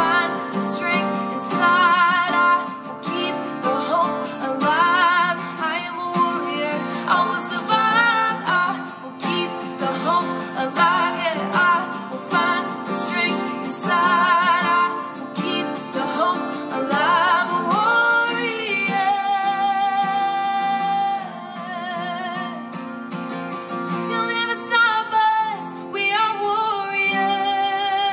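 A woman singing a slow worship song, accompanied by a strummed acoustic guitar, with one long held note about two-thirds of the way through.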